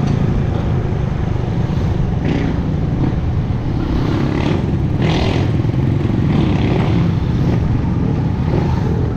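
Motorcycle engine running steadily while riding, heard from the bike itself, with steady road and wind noise on the microphone.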